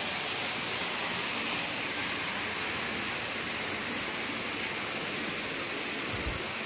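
Steady rushing of falling water from an indoor waterfall, with a brief low bump near the end.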